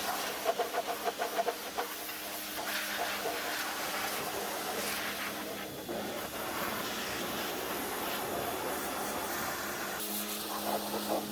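Electric pressure washer running and spraying: a steady hiss from the water jet over the hum of its electric pump motor, the hum growing stronger near the end.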